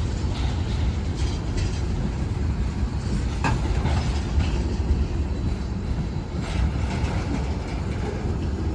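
Freight train of ethanol tank cars rolling past on jointed track: a steady low rumble with wheel clicks and clanks, one sharp click about three and a half seconds in.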